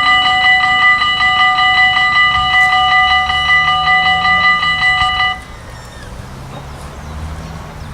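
Railroad level-crossing warning bell ringing in a rapid, steady pulse, then cutting off suddenly about five seconds in. A low hum that rises and falls slightly in pitch continues underneath.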